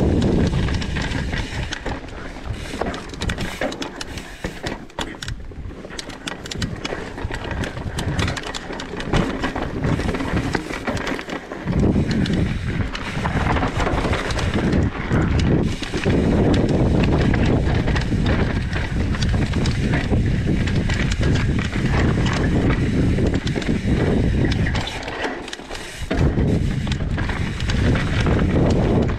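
Mountain bike ridden fast downhill on a dirt trail. It clatters and rattles over rocks for the first dozen seconds, then gives way to a steady rush of wind on the microphone and tyre noise on smoother dirt.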